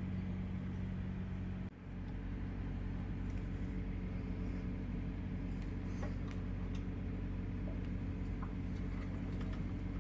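Steady low hum of a 2017 Ford Fiesta running, with a few faint ticks and no knocking from the front suspension: the upper strut mount has been replaced.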